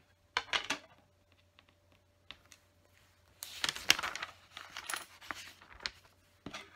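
Plastic LEGO pieces clicking and clattering as they are handled: a few clicks near the start, then a dense rattle of loose bricks and plates being rummaged through from about three and a half seconds in.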